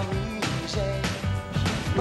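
Music with a steady beat, about two beats a second, over a held bass line.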